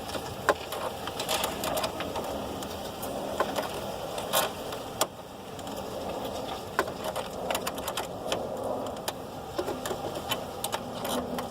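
Scattered light clicks and metallic taps over a steady background hiss, from hand tools being worked while a car battery is fitted.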